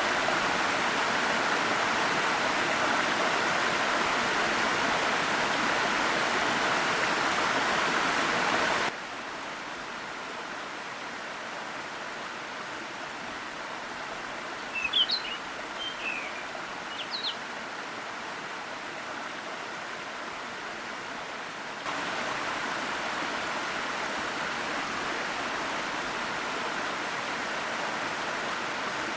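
Steady rush of a forest waterfall and stream, dropping abruptly to a quieter level about a third of the way in and rising again abruptly later. During the quieter stretch a small bird chirps a few times, high and brief.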